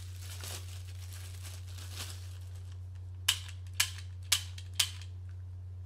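Plastic wrapping crinkling as a Cybergun Colt non-blowback airsoft pistol is unwrapped. Then come four sharp clicks about half a second apart as the pistol's mechanism is worked by hand.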